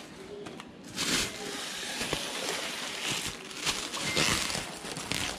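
Plastic shopping bags rustling and crinkling close to the microphone, with a few light handling knocks.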